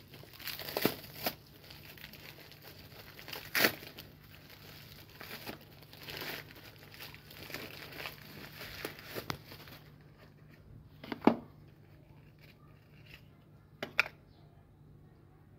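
Plastic bubble wrap crinkling and rustling as it is pulled off a small cardboard box by hand, with a few sharp clicks among it. About ten seconds in the crinkling dies away, leaving a few isolated sharp taps from handling.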